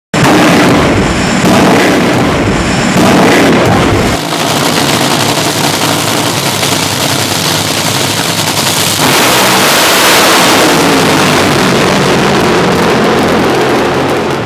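Drag-racing engines running at full power: loud, dense engine noise that starts abruptly and changes character about four and again about nine seconds in.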